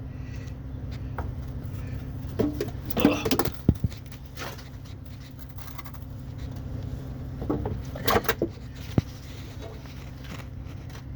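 Work on an oil filter: scattered clinks and knocks in two clusters, about three seconds in and again about eight seconds in, the sharpest near nine seconds, over a steady low hum.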